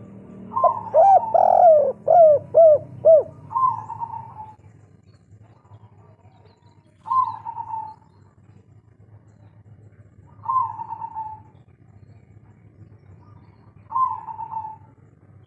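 Spotted dove (tekukur) of the local 'kuk 3' type cooing: a quick run of short rising-and-falling coos, then one longer falling coo. Three single falling coos follow, spaced about three and a half seconds apart.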